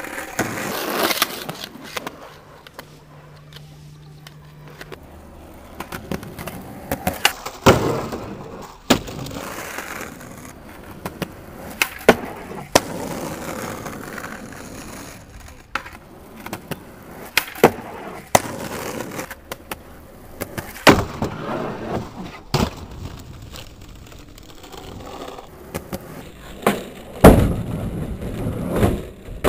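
Skateboard wheels rolling on asphalt, broken by many sharp pops and clacks of tricks and board landings. Near the end comes a loud, longer scraping grind along a wooden skate box.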